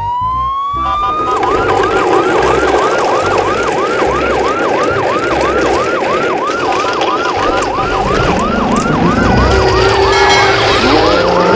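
Siren sounding: a rising wail at the start, then a fast up-and-down yelp repeating about three times a second.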